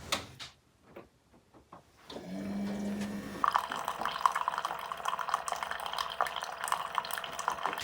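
Keurig single-serve coffee maker brewing: a few clicks, a short steady hum from about two seconds in, then hot coffee streaming and sputtering into the mug from about three and a half seconds in.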